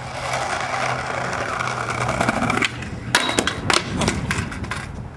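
Skateboard wheels rolling on concrete, going quiet about two and a half seconds in as the board leaves the ground. About half a second later come several sharp clacks as the board hits the pavement and clatters away from the rider.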